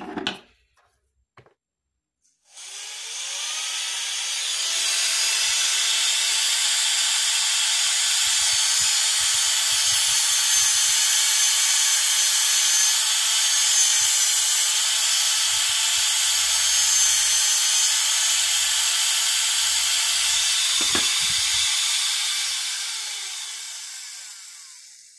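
Low-speed dental contra-angle handpiece spinning a size 4 post drill, a steady high whine that starts about two and a half seconds in and winds down near the end. The drill is widening the post space in a root-filled tooth, cutting out gutta-percha.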